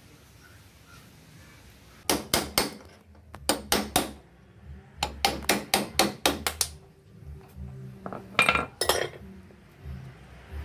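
Hammer blows on metal with a short ringing clink, in four quick runs of two to six strikes, as a bearing race is driven in the front wheel hub of a Bajaj Chetak scooter.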